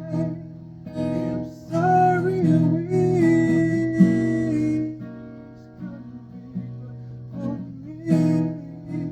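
Acoustic guitar being strummed and picked, with notes held and louder chords about two seconds in and again near the end.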